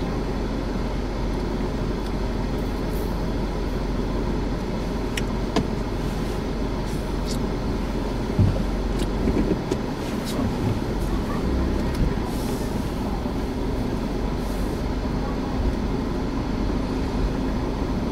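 Steady low rumble of a car idling, heard from inside the cabin, with a few scattered clicks and knocks in the middle.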